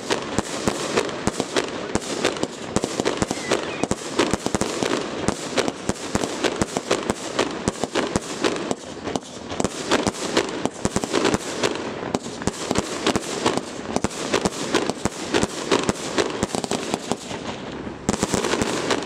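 A fireworks display barrage: aerial shells bursting in rapid succession, with sharp bangs several times a second over a near-continuous crackle, and no pause.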